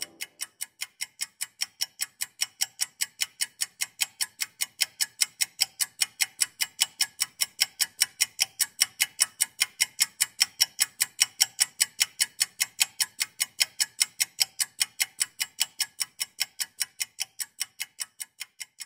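A clock ticking steadily and fast, about four to five ticks a second, fading in and then fading out near the end.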